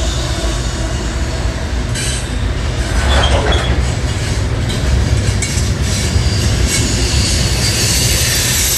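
Loaded coal hopper cars of a CSX freight train rolling past close by: a steady heavy rumble with wheel clatter over the rail joints, and a brief high wheel squeal about three seconds in.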